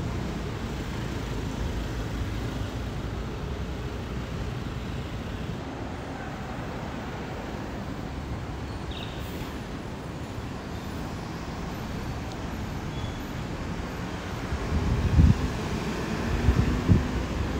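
Road traffic: a steady hum of passing cars, with louder low rumbles in the last few seconds.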